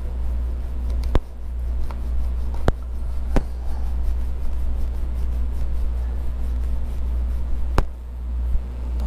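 Vinyl wrap being pressed and picked at by hand, giving four sharp clicks over a steady low hum.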